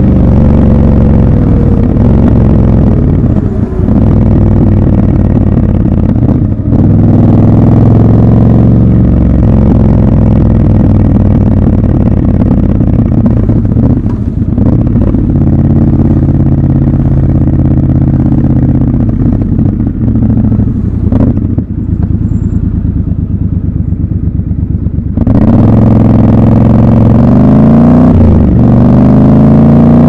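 Triumph Scrambler 1200 XC's 1200 cc parallel-twin engine running under way, with a few short dips as the throttle is eased off. About 25 seconds in it opens up and grows louder, its pitch climbing, dropping and climbing again as it accelerates.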